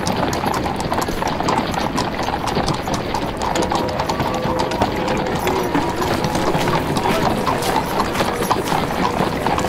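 Horses' hooves clip-clopping on a street, with a crowd's chatter and faint music behind it.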